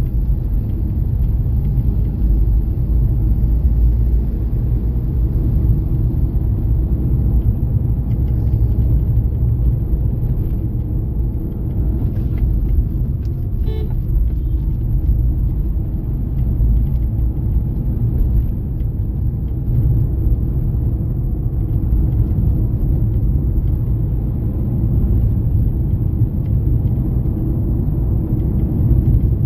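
Moving car, a steady low rumble of driving with little change throughout.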